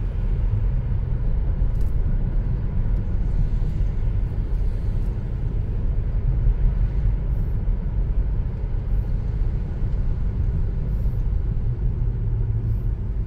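Steady low rumble of a car on the move, heard from inside its cabin: engine and tyre-on-road noise.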